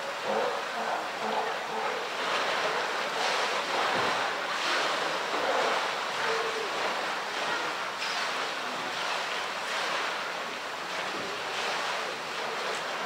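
Pool water splashing and sloshing in irregular surges as a polar bear wrestles a floating plastic barrel in the water.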